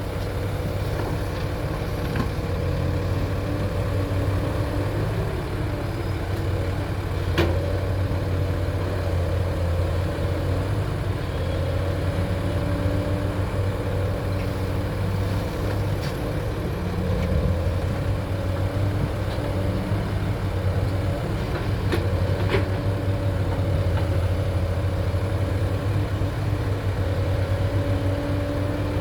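Excavator's diesel engine running steadily, its pitch shifting slightly with load. A few sharp knocks come through, one about seven seconds in and two close together past the twenty-second mark.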